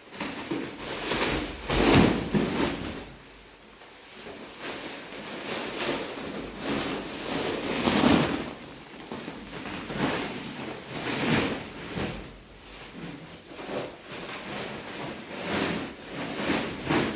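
Packaging of a newly delivered mattress being handled: uneven bursts of rustling, scraping and sliding, with a louder swell about two seconds in and another about eight seconds in.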